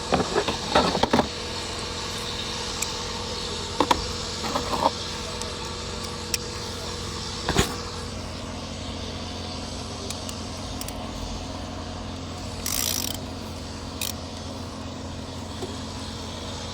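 Scattered metal clicks and knocks of a hand tool undoing the bolt that holds a car's ignition coil, the loudest about seven and a half seconds in, over a steady low hum. A short hiss sounds just before 13 seconds.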